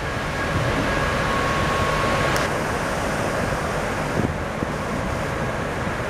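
Wind rushing across an open cruise-ship deck and buffeting the microphone, over the wash of a rough sea, a little stronger in the first couple of seconds. A faint steady whine from the ship's machinery runs beneath it.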